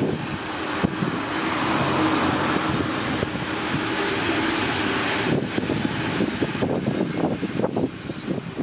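Long freight train of covered hopper wagons rolling past, a steady rumble and rush of steel wheels on rail. About halfway through the sound turns more uneven, with irregular low thumps.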